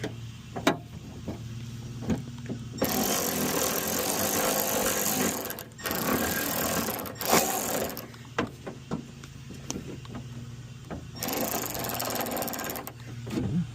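Tool work on a door handle's retaining bolt: scattered metallic clicks and knocks, with three stretches of rattling noise a few seconds each, as the bolt is tried in the hole without threading.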